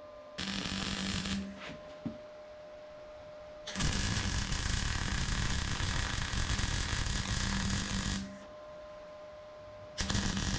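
Electric arc welding on steel: a short burst of buzzing crackle, then a longer run of about four seconds, then another starting near the end, each switching on and off abruptly, with a faint steady hum from the welder between them.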